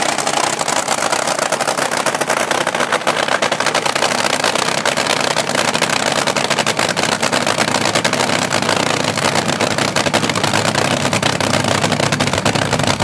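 Supercharged nitro-fuelled engine of an AA/FA fuel altered dragster running loud and steady at idle, with the sharp, rapid crackle of open exhaust pipes known as the nitro cackle.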